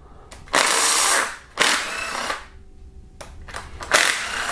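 Cordless power driver run in three short bursts of about half a second each, spinning camshaft bearing cap bolts loose a little at a time in the set order.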